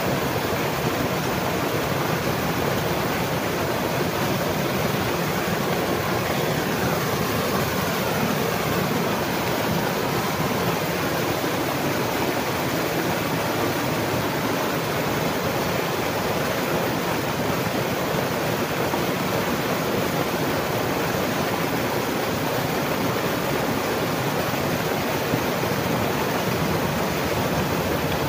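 Steady rushing of flowing water, an even hiss with no breaks.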